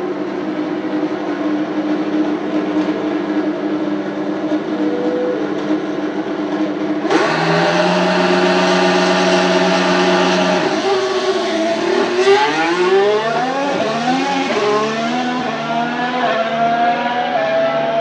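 McLaren MCL34's Renault E-Tech 19 turbocharged V6 hybrid power unit running steadily, then revs jump suddenly about seven seconds in and are held for a practice start. About five seconds later the car launches and accelerates away, the engine note rising and dropping through several quick upshifts.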